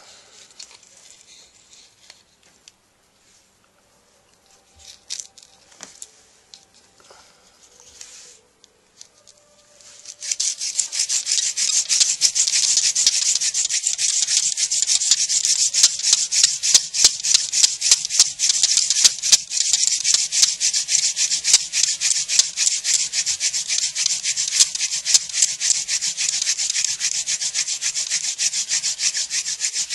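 Hand-drill friction fire: a short wooden spindle is spun fast between the palms, its tip grinding into a wooden hearth board with a loud, steady, scratchy rasp. The rasp starts abruptly about ten seconds in, after a stretch of faint handling of the wood.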